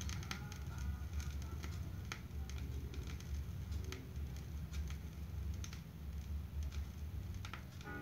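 Quiet gap between songs on a vinyl record played through a hi-fi: scattered surface clicks and crackles over a low rumble.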